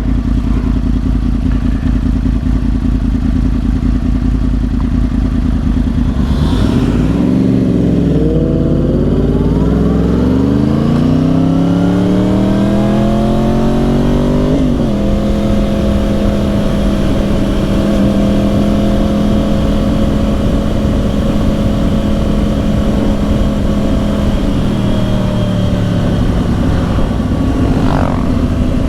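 2010 Yamaha R1's crossplane inline-four through dual Yoshimura exhausts, under way. The engine runs steadily, then about seven seconds in it pulls and climbs smoothly in revs for several seconds. The revs drop sharply halfway through, as at a gear change or throttle lift, then hold steady, and ease off near the end, with road and wind noise throughout.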